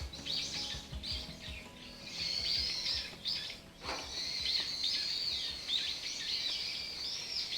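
Several birds chirping, with many short, overlapping rising and falling calls, and a single sharp click about four seconds in.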